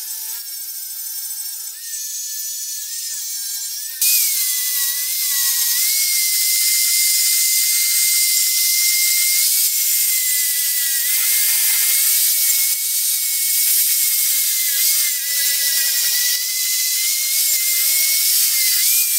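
Corded angle grinder with a green abrasive disc running at a steady whine as it sands and cleans up the inside of a rough-cast bronze frying pan. The grinding becomes louder and harsher about four seconds in, the whine wavering slightly as the disc is pressed and moved over the metal.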